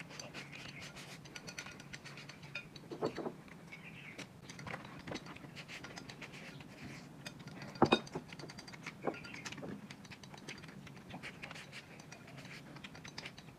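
Eating sounds: chopsticks clicking and scraping against ceramic plates as rice is shoveled into the mouth, with chewing. Many small irregular clicks, the sharpest one about eight seconds in.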